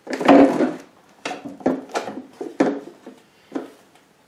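Metal clunks and knocks from a heavy lathe drive unit, motor and pulley, being shifted and set down inside a sheet-metal lathe cabinet base. A loud, dense clunk comes first, then six or seven short, sharp knocks spread over the following seconds.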